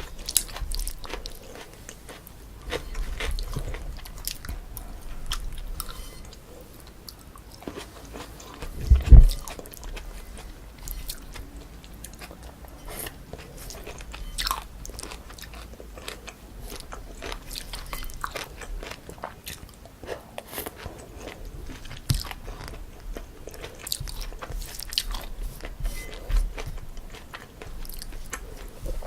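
Close-miked eating: a person biting and chewing a meal of spicy cold chewy noodles, with crunches and wet mouth clicks scattered irregularly. One loud, low thump about nine seconds in.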